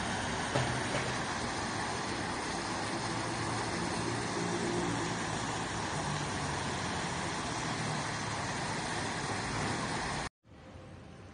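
Fountain water jets splashing into a basin: a steady rushing splash that cuts off suddenly near the end, leaving a much quieter background hiss.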